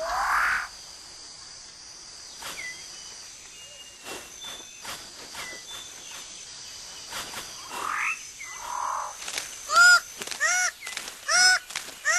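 Rainforest ambience: a steady high whine, a few scattered chirps and rising calls. From about three-quarters of the way in, a bird gives a loud series of repeated arched, honking calls, roughly one a second.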